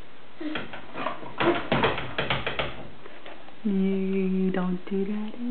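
Interior glass-paned door being pushed and leaned on: a run of light rattling clicks. About two-thirds of the way through, a steady low pitched tone starts and is held in two stretches with a short break between them.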